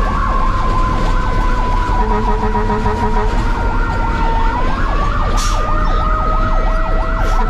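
Fire engine's electronic siren on a fast yelp, about four sweeps a second, heard from inside the cab over a steady engine and road rumble. A second, steady siren tone slides slowly down, then rises about four and a half seconds in.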